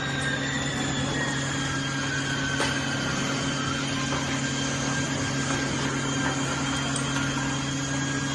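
Hydraulic power unit of a 50-ton cold press running: a steady electric motor and pump hum with a faint high whine that drifts slowly lower.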